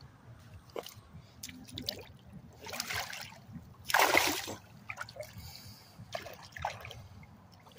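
Splashing in shallow river water as a released shark, which the angler thinks is a spinner shark, thrashes free and swims off. A smaller splash comes about three seconds in and the loudest, lasting about half a second, about four seconds in.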